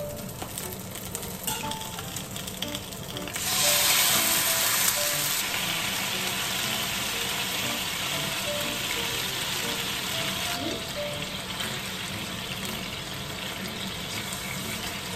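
Stuffed atsuage (thick fried tofu) sizzling in a frying pan. About three and a half seconds in, sauce goes into the hot pan and the sizzle jumps to a loud hiss, then settles to a steady frying sound as the sauce cooks down.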